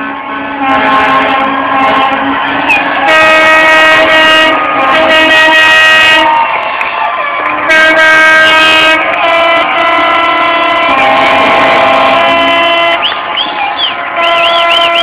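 Several boat horns sounding long, overlapping blasts at different pitches, one after another, with a few warbling whistles near the end.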